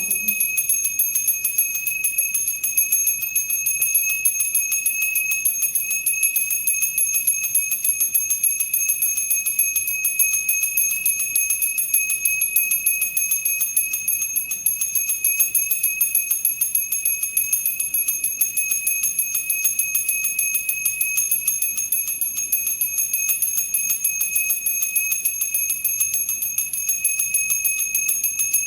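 Temple bell rung continuously: a steady high ringing that never dies away, with rapid repeated strikes.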